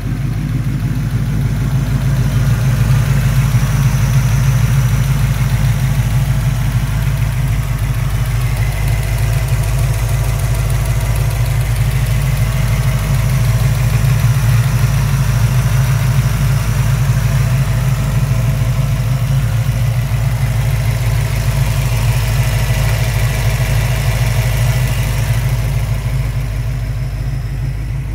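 Chevrolet ZZ430 small-block V8 crate engine in a 1967 Camaro, idling steadily with a deep, even burble and no revs.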